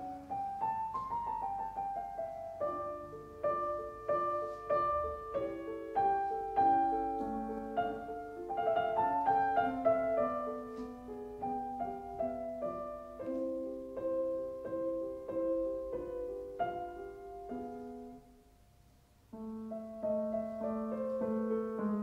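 Background piano music: a melody of struck notes over held chords. It breaks off for about a second near the end, then starts again.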